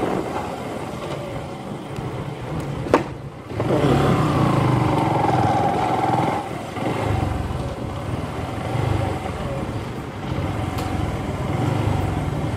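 Motorcycle engine running while riding, with road noise. About three seconds in there is a sharp click and the engine briefly drops away, then it revs up again and keeps running.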